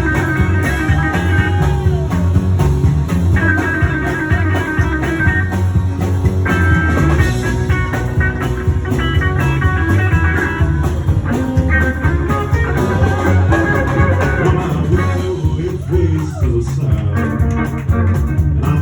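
Live honky-tonk country band playing an instrumental section, with a lead guitar playing bending phrases over steady bass and drums.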